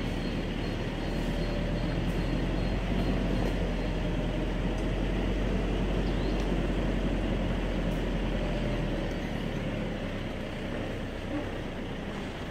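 Toyota 4x4 rolling slowly down a steep dirt track, heard from inside the cab: a steady engine and drivetrain drone under road noise. The lowest rumble eases about nine seconds in.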